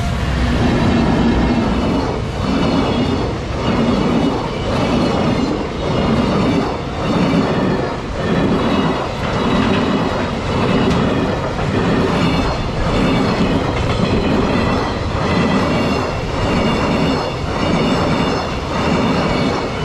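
Freight train wagons rolling past close by, their wheels clacking over the rail joints in a steady beat about once a second.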